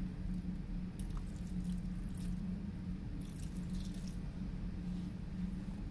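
Water dribbled from a small cup onto a mound of chipped ice and wet sediment, heard as scattered soft drips and wet trickles. A steady low hum runs underneath.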